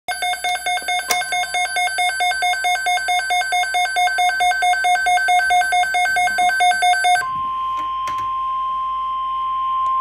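Weather alert radio alarm: an electronic tone warbling between two pitches about four times a second, then, about seven seconds in, changing to the steady single-pitch NOAA Weather Radio warning alarm tone that precedes a severe thunderstorm watch message.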